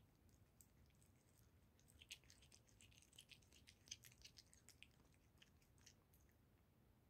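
Faint clicks and wet smacking of a tabby cat chewing and licking a piece of liverwurst. The sounds are busiest from about two to five seconds in and die away near the end as it stops eating.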